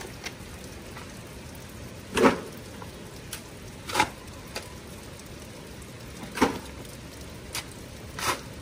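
A shovel digging into damp soil: four strikes about two seconds apart, the first and third the loudest.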